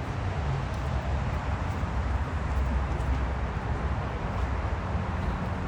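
Steady outdoor background rumble with a hiss over it, heaviest in the low end, with no distinct calls or knocks standing out.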